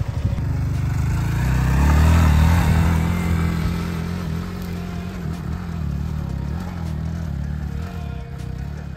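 Rented motorbike engine revving hard as the bike climbs a steep trail, loudest about two seconds in, then easing back to a steadier pull.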